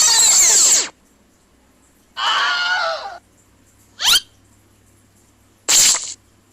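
Short cartoon-style novelty sound effects played one after another with silent gaps. First comes the end of a swirl of gliding tones, then a brief squeaky, voice-like effect about two seconds in, a quick rising whistle about four seconds in, and a short burst of hiss near the end.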